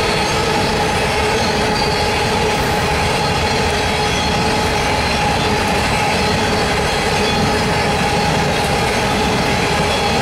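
Steady loud rumble of loaded coal hopper cars rolling past on steel wheels, with a continuous high wheel squeal ringing over it.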